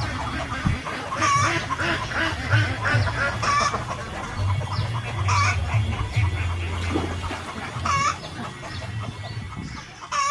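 Domestic poultry calling, with one louder call about every two seconds among many smaller clucks, over a steady low hum.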